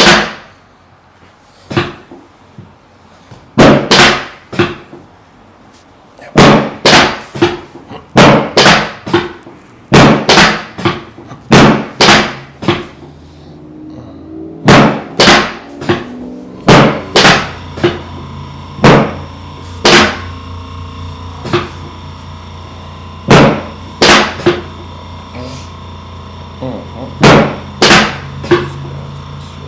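Loud sharp clunks from a chiropractic adjustment table, often two or three close together and repeating every second or two, as the chiropractor works on the patient's hips. A steady hum comes in about halfway through.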